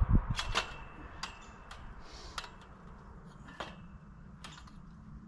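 Galvanized steel tubing of a chicken-run frame clicking and knocking as the door frame is fitted into its connectors: a low thump and a quick cluster of clicks at the start, one with a brief metallic ring, then single clicks every second or so.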